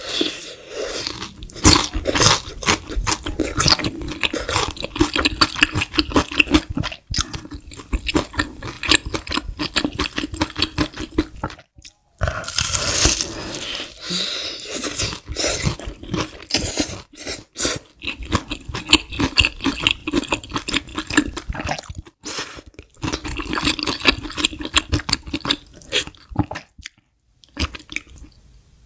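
Close-miked crunching and chewing of crispy breaded fried chicken, a dense run of crackling bites and chews broken by a few brief pauses.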